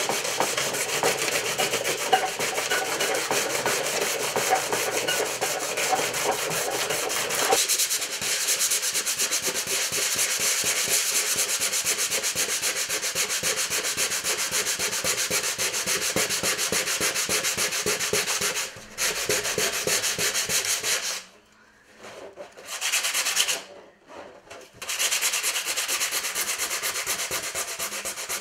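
Sandpaper rubbed by hand over a model ship's hull: a continuous scratchy rasp of quick back-and-forth strokes. The rasping stops briefly a few times in the last third.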